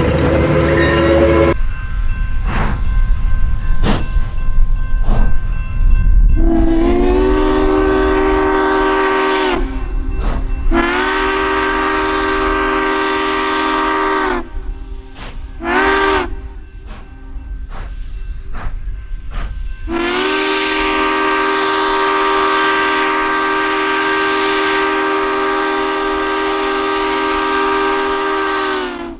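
Rumbling and clanking of a passing train, then the chime whistle of Southern Pacific's Daylight-liveried streamlined steam locomotive (SP 4449) blowing the grade-crossing signal: long, long, short, long, with the last blast held for several seconds.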